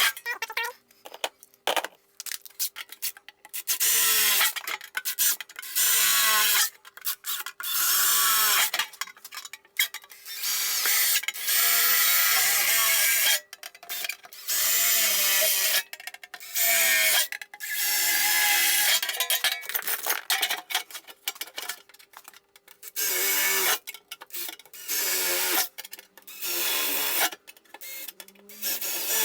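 Power drill boring holes through mild steel sheet, run in short bursts about a dozen times, with the motor starting and stopping between holes.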